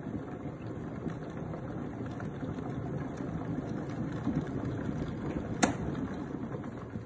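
Kettle coming to the boil: a steady rumbling bubbling with a sharp click about five and a half seconds in.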